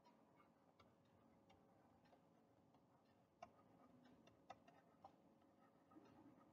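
Near silence with faint, unevenly spaced ticks of a stylus tapping and writing on a tablet, over a faint steady hum.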